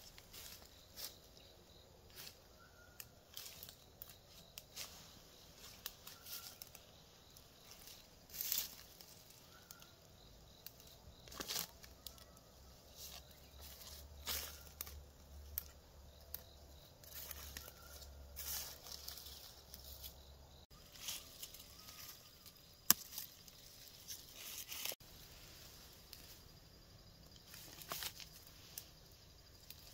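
Plant stems and leaves snapped and torn by hand: short sharp snaps scattered every second or two over quiet rustling.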